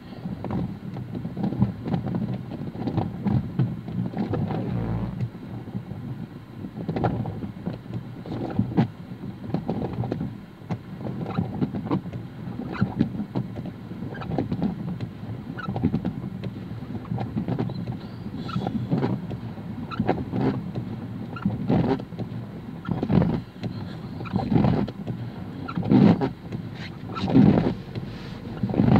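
Car cabin noise while stopped in the rain: a low steady hum with irregular knocks and taps, louder and more frequent near the end.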